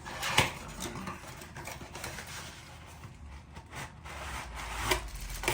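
Handling noises: a sharp knock about half a second in and a couple of clicks near the end, with faint rubbing between, as objects are picked up and moved.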